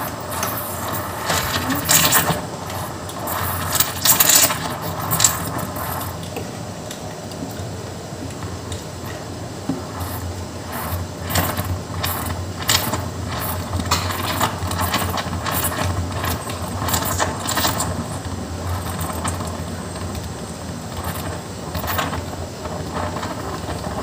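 Steam wand of an Inalsa espresso coffee maker frothing milk in a mug: a steady hiss with irregular crackles as the steam bubbles through the milk. The crackling is busier in the first few seconds, and the foam rises to the rim.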